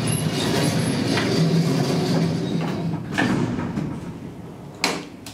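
Automatic sliding doors of a 1967 Flohr-Otis traction elevator closing with a steady rumble, a knock about three seconds in as they shut, then a sharp click near the end.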